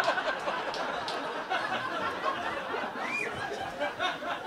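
Comedy-club audience laughter dying down into scattered chuckles and murmurs, with one short rising voice a little past three seconds in.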